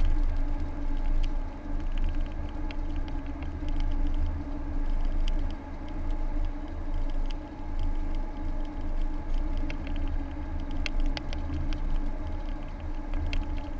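Car driving heard from inside the cabin: a steady low rumble of engine and tyres on the road with a constant hum. Scattered light clicks and rattles, more of them in the second half.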